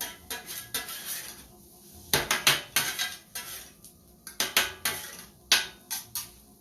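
Metal spatulas clanking and scraping on a flat-top griddle: irregular sharp clacks, some in quick runs, the loudest about two to three seconds in and again near five and a half seconds.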